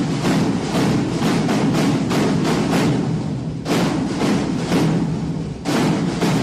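Music with a fast, driving drum beat, which pauses briefly twice.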